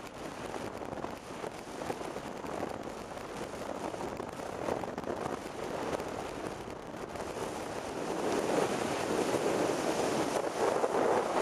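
Wind buffeting the microphone and road noise from a moving vehicle, a steady rushing that grows louder over the last few seconds.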